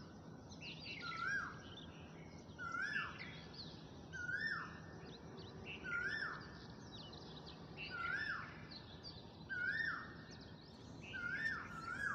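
A bird calling over and over, the same short phrase repeated about every one and a half seconds, about eight times. A faint steady hum lies beneath.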